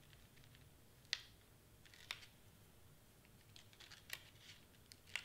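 Faint handling of cardstock: a few soft clicks and paper rustles, about a second apart, as the cardstock piece is pressed and smoothed down by hand.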